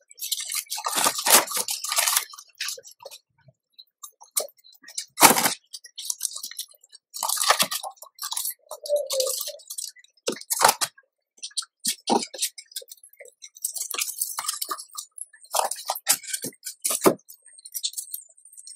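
Irregular rustling and crinkling of shredded newspaper and dry sticks as a mother rodent pulls and rearranges her nesting material, in short bursts broken by sharp clicks.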